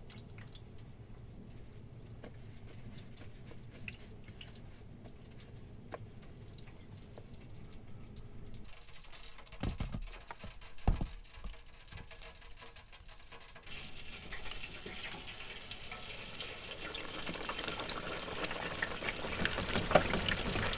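Breaded crappie fillets going into an electric deep fryer: a couple of sharp metal knocks from the fry basket about ten seconds in, then hot oil sizzling and bubbling, building louder over the last several seconds.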